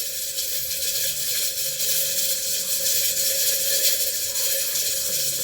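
Steady sizzling hiss of onions frying in a pot with a little water added.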